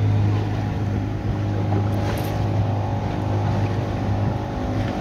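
Small open boat's motor running steadily under way, an even low drone that holds its pitch throughout.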